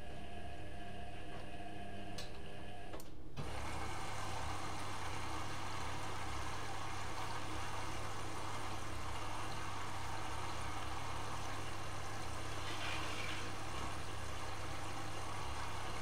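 Candy GrandÓ GO145 front-loading washing machine in its load-sensing step. The drum motor whines as the drum turns at speed, then cuts off about three seconds in. A steady rush of water with a low hum follows while the drum stands still.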